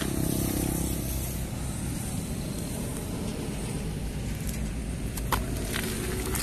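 Kawasaki Ninja ZX-25R's 250 cc inline-four engine idling steadily through a Yakuza Racing aftermarket slip-on exhaust, with a sharp click about five seconds in.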